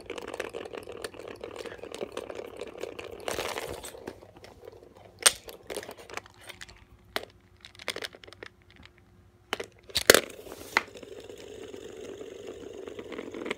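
Scattered clicks and taps from a plastic spinning top being handled and spun on a wooden floor, with a sharp knock about five seconds in and another about ten seconds in.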